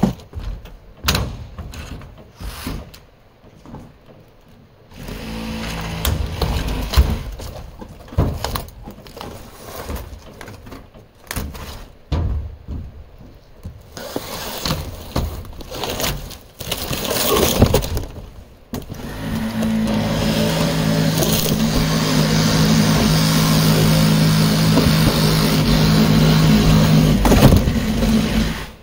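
Knocks, clatter and scraping as pieces of RV wall panel and broken wood are handled and dropped into a wooden dump trailer. About twenty seconds in, a reciprocating saw starts and runs steadily, cutting, until just before the end.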